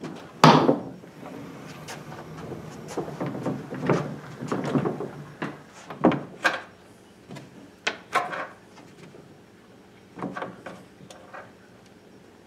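Wooden cabinet panels of an 1800s pump organ being handled and pulled loose: a loud wooden knock about half a second in, then scraping, and knocks and clicks scattered through the rest.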